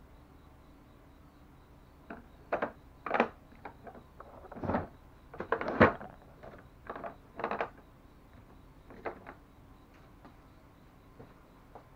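Irregular clinks and knocks of hand tools being handled on a bicycle while a wrench is put to the derailleur's cable clamp bolt, with a dozen or so short sharp strikes, loudest about three and six seconds in, then quiet for the last couple of seconds.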